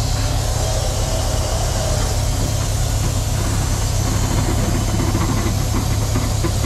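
Kenworth semi-truck's diesel engine idling steadily, with a constant hiss over it.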